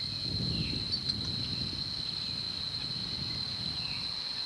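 Insects trilling in one steady high-pitched tone, with a low rustling through the first three seconds or so.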